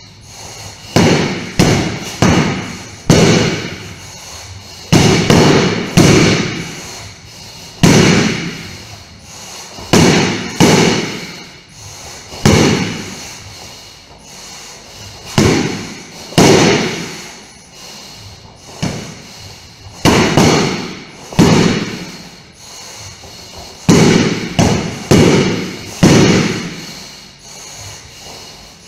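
A training sword hitting a hanging heavy punching bag again and again: sharp thuds in quick runs of two to four, about twenty in all, each followed by a short echo.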